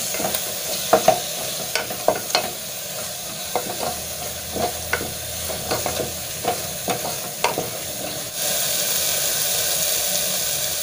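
Spatula stirring curd into an onion-tomato masala frying in an aluminium pressure cooker: scattered clicks and scrapes of the spatula against the pot over a steady sizzle. About eight seconds in the stirring stops and the sizzle carries on steadier and louder.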